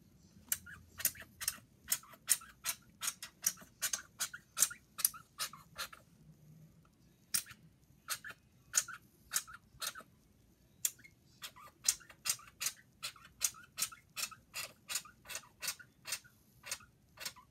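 Slime being kneaded and stretched by hand, giving off a run of sharp little clicks and pops, about two or three a second, sparser for a few seconds in the middle.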